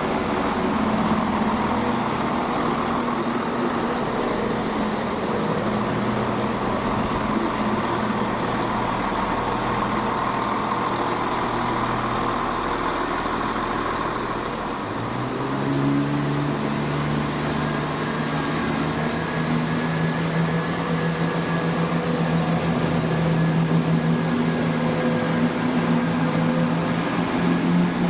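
ScotRail Class 170 Turbostar diesel multiple unit, its underfloor MTU diesel engines running steadily. About halfway through, a deeper engine note comes in and slowly rises, with a faint high whine climbing above it as the unit powers up.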